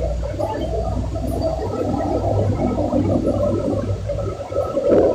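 Electric water pump running with a low hum while water gurgles through it; the hum eases off about four seconds in.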